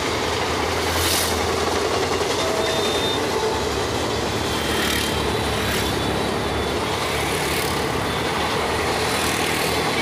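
Passenger train running past on the track, a steady rumble and rush of noise, with a few brief faint rises in the hiss.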